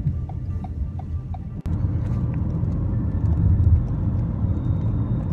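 Car cabin rumble of engine and tyres on a wet road, with a light regular ticking, two or three a second, for the first second and a half. Then an abrupt cut to a louder, steady driving rumble.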